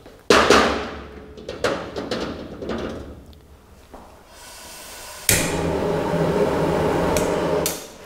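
A wok set down with a ringing clang and a few knocks on a commercial gas range, then a high-output gas wok burner: gas hisses for about a second, catches with a sudden whoosh and runs with a steady rushing flame noise for about two and a half seconds before it is shut off.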